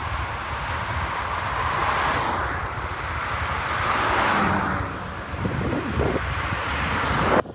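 Wind rushing over the microphone while riding a road bike at speed into a headwind, over a low road rumble from the shaking bike. The noise swells and eases and cuts off suddenly near the end.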